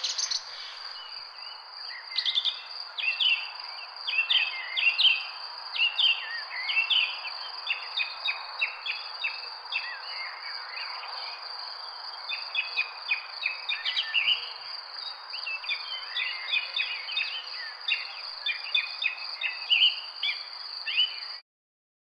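Many small birds chirping and singing in quick, overlapping short calls over a steady background hiss with a thin, steady high-pitched drone; the recording cuts off suddenly near the end.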